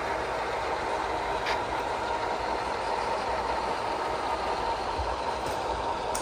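Model diesel locomotive's sound decoder playing a steady diesel engine running sound through its small onboard speaker.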